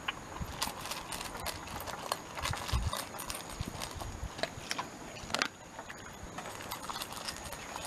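Shiba Inu eating dry kibble from a metal bowl: irregular crunching and clicking as it chews, with a few dull knocks between about two and four seconds in.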